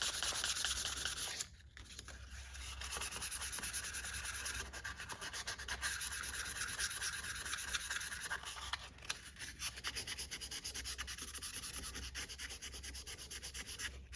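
Sandpaper rubbed back and forth by hand on a pocket knife blade, in quick, even strokes that pause briefly about a second and a half in and again around nine seconds.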